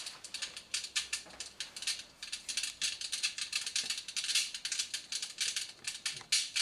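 Recorded wood-fire crackling played through a homemade electric fireplace's MP3 sound module: dense, irregular crackling clicks.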